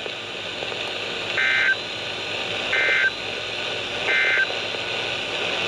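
Emergency Alert System end-of-message data bursts: three short, identical two-tone digital bursts about a second and a half apart, marking the end of the warning broadcast. Radio receiver hiss runs under them.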